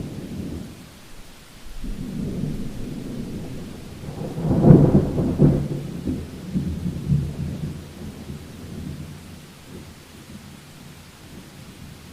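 Heavy rain falling steadily under rolling thunder. A low rumble builds about two seconds in, swells to its loudest near the middle, then rolls away over the next few seconds, leaving the rain alone near the end.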